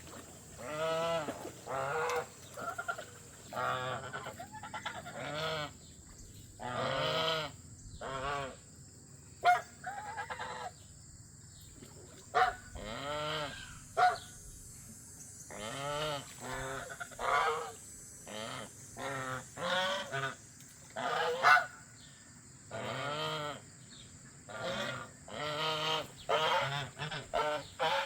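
Domestic geese honking, many calls one after another in short, separate bursts with brief pauses between them.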